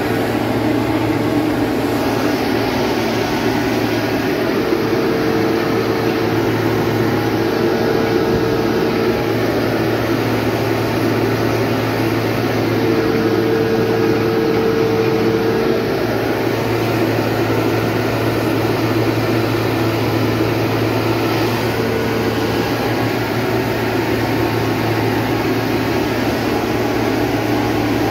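New Holland tractor running steadily at working speed across a field, heard from inside the cab: a constant low engine hum with a mid-pitched whine that swells three times.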